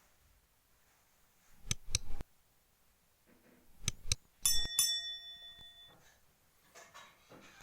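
A few sharp clicks or knocks, then a struck object ringing with a clear bell-like tone that dies away over about a second and a half.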